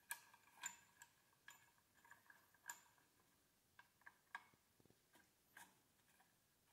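About a dozen faint, irregular light metallic clicks from a steel C-clamp being tightened by hand, its screw and handle clinking, as it starts pressing a drawn-cup bearing into an ATV swingarm.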